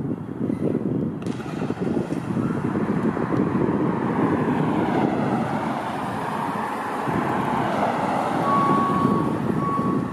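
Wind buffeting the microphone over the low rumble of an ambulance idling in its bay, with a short high beep sounding twice near the end.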